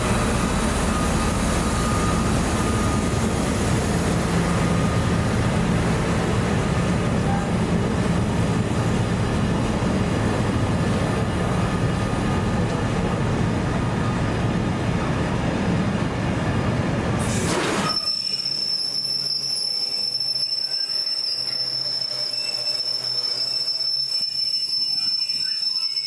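Container freight train hauled by a Class 68 diesel locomotive running past, a dense steady rumble of wheels on rail with a low engine hum. About 17 seconds in the rumble cuts off abruptly, leaving a steady high-pitched squeal, typical of wagon wheels squealing on curved track.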